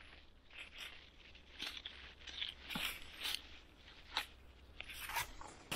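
Dry fallen leaves crunching and rustling in irregular crunches about one or two a second, stirred by footsteps and a metal detector's search coil swept over the leaf litter.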